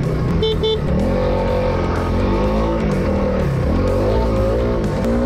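Dirt bike engines revving up and down while riding an off-road trail, mixed with background music carrying an electric guitar.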